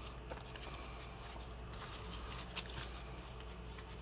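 Paper sticker sheets being picked up and shuffled by hand: a few light rustles and taps over a faint low hum.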